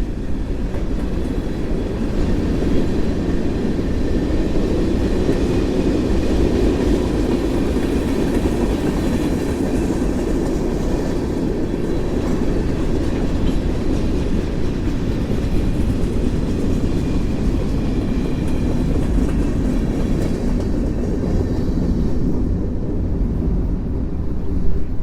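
Freight cars of a CSX mixed freight train rolling past on the track: a steady rumble of steel wheels on rail.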